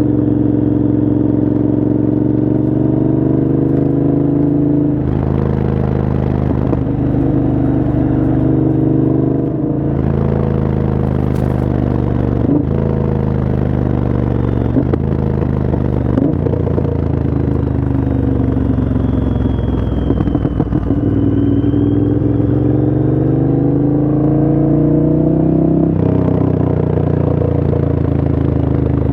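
Moto Guzzi transverse V-twin motorcycle engine with an aftermarket exhaust, running hard under way. Its pitch climbs and then drops sharply several times, as on gear changes. About two-thirds of the way through the note falls off and then climbs back up.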